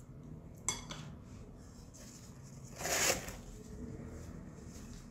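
A short papery rustle of a tissue being pulled out and unfolded about three seconds in, after a light click about a second earlier.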